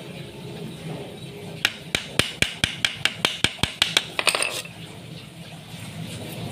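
A small hammer tapping a nail into a wooden photo-frame moulding, about a dozen quick, even taps at roughly five a second, followed by a brief fast clatter.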